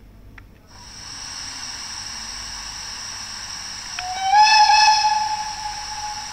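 Sound module of a model BDZ class 45 steam locomotive playing a steady steam hiss, then a whistle that starts about four seconds in, slides up slightly at its start and is held for about two seconds.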